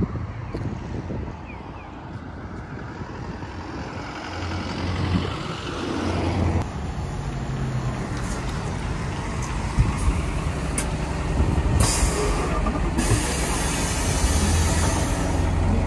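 A large vehicle's engine running with a steady low rumble, joined by a loud hiss of air in the last few seconds.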